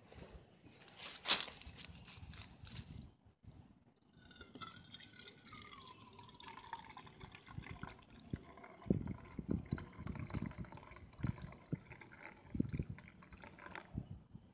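Liquid poured while making French press coffee: a pour with a ringing note that falls in pitch for a few seconds, then a series of dull knocks from the gear being handled.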